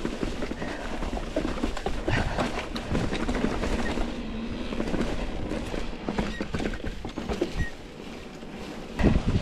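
Mountain bike rolling fast over rough singletrack: the tyres crunch over dry fallen leaves and roots, and the bike rattles and knocks over the bumps, with low wind rumble on the microphone. There is a louder jolt near the end.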